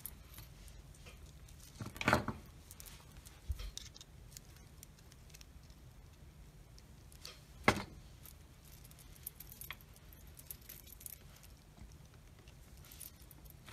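Beads and small wire jewelry parts clinking softly as they are handled, with two sharper clicks: one about two seconds in and a louder one near eight seconds in.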